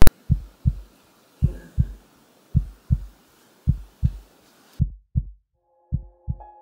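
Heartbeat sound effect: low thumps in lub-dub pairs, one pair a little more than once a second, opening with a sharp click. About five seconds in, the background hiss cuts out and a faint held chord of steady tones comes in under the heartbeat.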